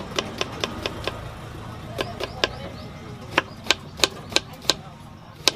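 Kitchen knife chopping onion on a wooden cutting board: sharp knocks of the blade striking the board, in quick runs of three to five strokes, about three to four a second, with short pauses between runs.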